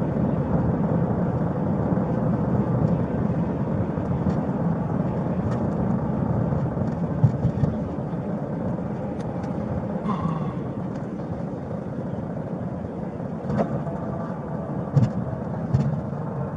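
Steady road and engine noise inside a moving police car's cabin, with a few faint clicks and knocks.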